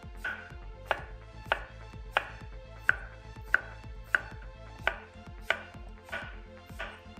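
Chef's knife slicing a cucumber into half-moons on a bamboo cutting board. The chops are even and steady, about three every two seconds, each a sharp knock of the blade against the wood.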